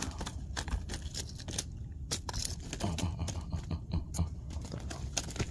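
Handling noise close to the microphone: rustling and crinkling with many sharp, irregular crackles, over a steady low rumble, as a freshly caught fish is put away.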